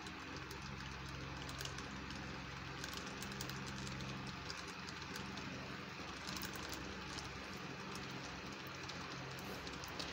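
Rapala XTP Husky 5000 spinning reel being cranked steadily by hand as monofilament line winds onto its spool: a faint low whir with scattered light ticks.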